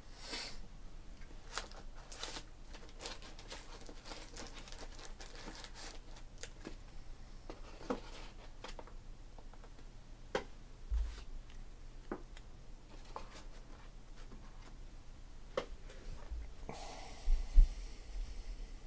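Trading cards being handled: scattered soft clicks and rustles, with a couple of louder knocks near the end.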